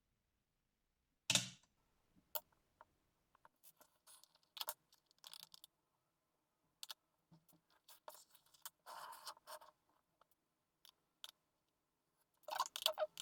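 Scattered small clicks, taps and scrapes of hands and tools working on an Asus TUF F15 laptop during a RAM upgrade, with a sharp knock about a second in and a quick cluster of clicks near the end.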